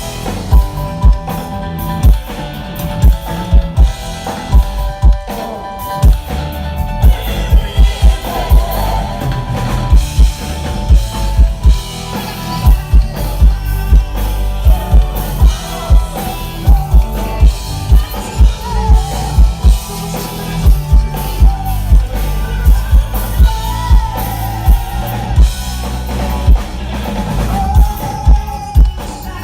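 A live band playing a song, loud, with a drum kit driving a steady kick-drum beat about twice a second under sustained instrumental notes.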